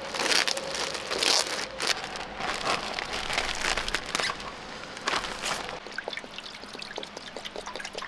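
A plastic food bag crinkles as it is torn open and handled. Near the end, water from a plastic bottle pours into an electric cooking pot.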